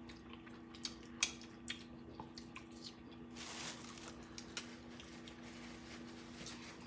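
Quiet mealtime table noises: scattered sharp clicks and taps, the sharpest about a second in, and a brief rustle about three and a half seconds in, over a steady low hum.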